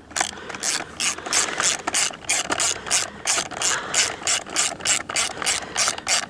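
Hand ratchet wrench clicking in an even run, about four clicks a second, as the bolts of a Stihl FS 110R trimmer's recoil starter housing are run in.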